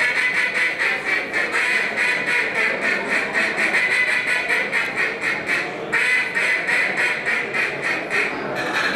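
Handheld duck call blown in a calling-contest routine: a fast run of quacks, about five a second, with a short break about six seconds in, stopping shortly before the end.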